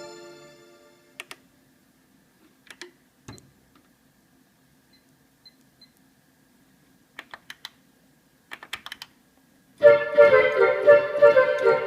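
Kurzweil K2000 synthesizer: a keyboard sound dies away at the start, leaving near-quiet broken by a few faint scattered clicks. About ten seconds in, a new keyboard sample starts, chords with several held notes in an organ-like tone.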